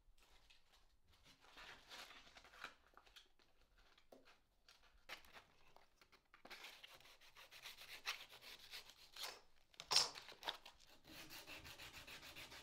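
Sandpaper rubbed by hand over carved layered plywood, in faint, uneven strokes that grow denser and settle into a fast, even back-and-forth rhythm near the end.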